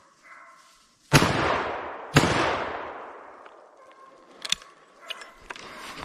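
Two rifle shots about a second apart from a Blaser hunting rifle, each a sharp report with a long echoing tail fading over about a second. A few light clicks follow near the end.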